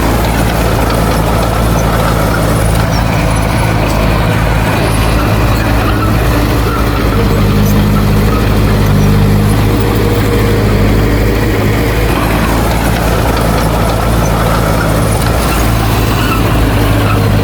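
Heavy diesel engine of earthmoving machinery running steadily, its note changing a little in the middle and again near the end.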